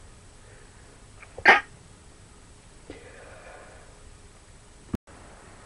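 A person sneezes once, sharply and loudly, about one and a half seconds in, with a short intake just before it. A softer breathy sound follows a second or so later, and there is a click near the end.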